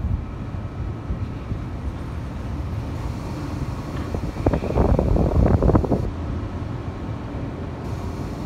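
Wind buffeting the microphone over a low outdoor rumble, with a louder patch of short knocks and crackle about halfway through.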